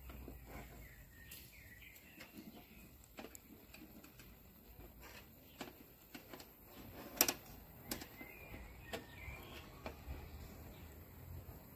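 Faint grilling sounds from skewers over charcoal in a mangal: scattered clicks and crackles, with one sharper click about seven seconds in. Birds chirp faintly in the background.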